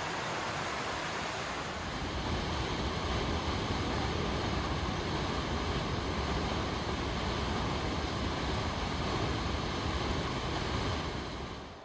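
Steady rush of falling and running water: a rocky creek, then from about two seconds in a waterfall pouring into a pool, louder and deeper, fading out near the end.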